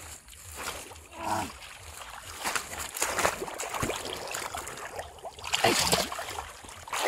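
Splashing and sloshing in shallow muddy water as a fish thrashes and a hand grabs at it, in irregular bursts that are loudest near the end.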